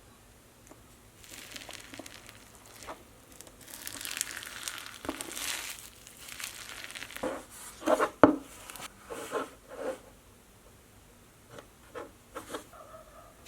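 Slime being squeezed and poked by hand, giving a crinkly, crackling sound, then a cluster of sharp pops and clicks midway.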